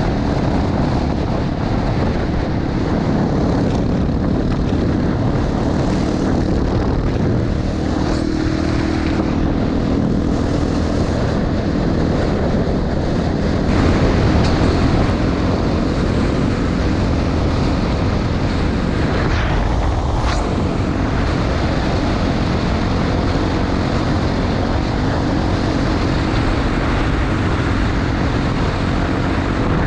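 Honda XR250 Tornado's single-cylinder four-stroke engine running steadily while the bike is ridden, its engine speed shifting slightly a few times.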